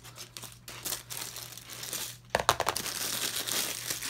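Plastic wrapping and a large rolled diamond painting canvas crinkling and rustling as they are handled and unrolled, with a sudden louder crackle a little past halfway and steady crinkling after it.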